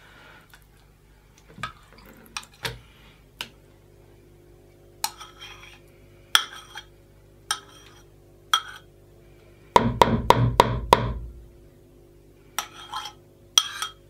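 Spoon scraping cream cheese out of a mug into a plastic mixing bowl: short scrapes and clinks every second or so, with a quick run of louder knocks about ten seconds in as the cheese is knocked off the spoon.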